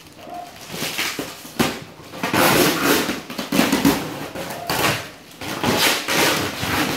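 Packing tape being pulled and ripped off a styrofoam shipping box, with plastic wrap rustling: a series of irregular rips roughly a second apart.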